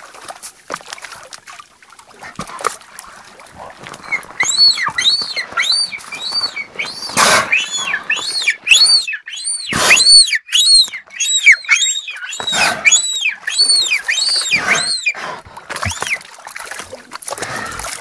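Beluga whales calling in air with their heads raised above the water: a run of high chirps that each rise and fall in pitch, about two a second, starting about four seconds in and stopping near the end, with splashing between them.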